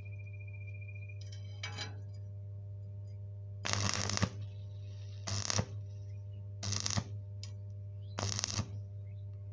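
Stick-welding arc on thin, rusty square steel tube, struck in short stop-start bursts: four bursts of arc crackle, each under a second, about every second and a half from about four seconds in. A steady low hum runs between them. This stop-start arcing is a way of welding thin tube without burning through it.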